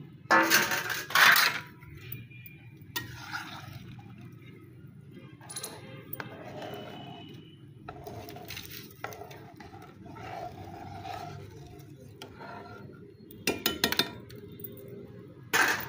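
Metal cookware clattering: a metal pot lid set down with a couple of loud clangs about half a second in, then a steel ladle stirring and scraping in a metal cooking pot, knocking against it a few times near the end.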